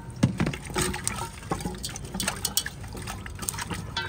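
Water splashing and trickling as a whole raw chicken is washed, with irregular splashes and knocks throughout.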